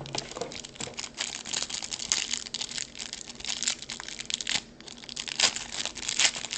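Plastic packaging around trading cards crinkling and rustling in the hands, in quick irregular rustles and clicks.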